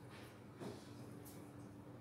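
Faint rubbing and pressing of hands shaping a ball of bread dough on a wooden board, with one slightly louder soft knock a little over half a second in, over a low steady hum.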